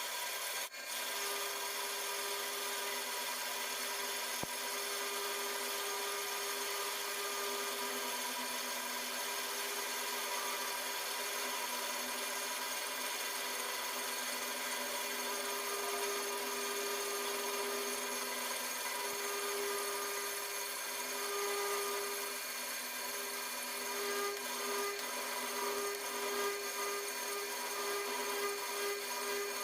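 Lathe running steadily with a hum and a continuous scraping, rubbing noise of machining, with a brief break just after the start.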